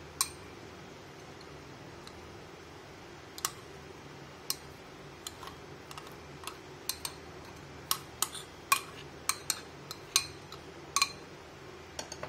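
A spoon clinking and tapping against a glass bowl and a ceramic bowl as grated mozzarella is scraped out: scattered sharp clicks, few at first and coming often in the second half.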